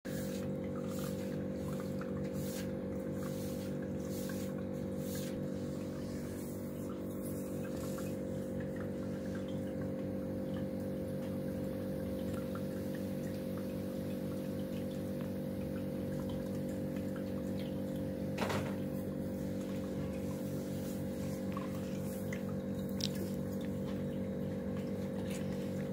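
Aquarium filter pump running with a steady electric hum and water splashing and trickling at the surface, with one short tap about two-thirds of the way through.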